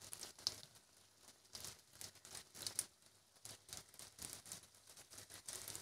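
Flour-batter fish bait frying in hot oil in a wok, faintly sizzling with irregular crackles and pops.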